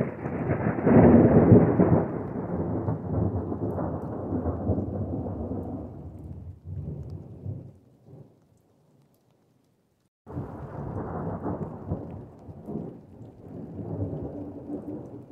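Thunder rolling: a deep rumble that starts suddenly, is loudest a second or two in and fades over several seconds before cutting out. A second roll of thunder begins about ten seconds in.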